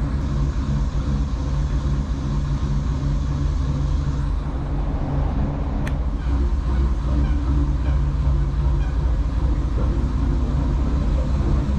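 Dutch barge's engine running steadily under way, a constant low hum, with a single short click about six seconds in.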